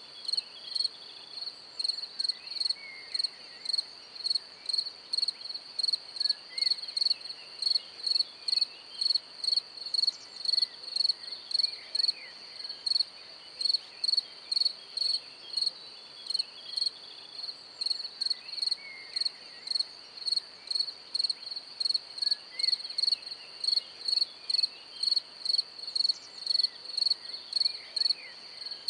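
An insect chirping in short, evenly spaced high-pitched pulses, about two a second, keeping a steady rhythm throughout.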